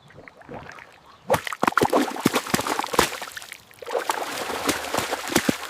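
Water splashing and sloshing in quick, irregular splashes, starting about a second in and running in two spells.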